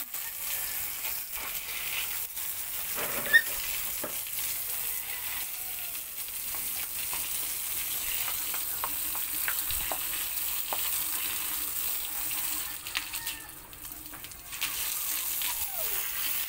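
Garden hose spray hissing and spattering on concrete, broken by short splashes as a dog bites into the stream. A single sharp click about three seconds in is the loudest moment, and the hiss drops away briefly shortly before the end, then comes back.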